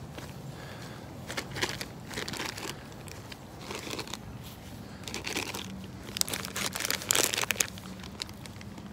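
Footsteps rustling and crunching through fallen autumn leaves, in irregular bursts that grow loudest and busiest in the second half, with a faint steady low hum underneath.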